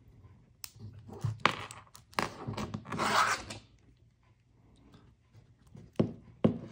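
Carbon fiber link watch band being worked with a metal SIM ejector pin while its links are pried apart: sharp clicks and scraping and rubbing through the first half, then two sharp clicks near the end.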